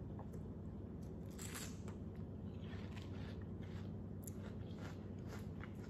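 Faint crunching of a person biting into and chewing a slice of watermelon, a few irregular bites and chews, over a steady low room hum.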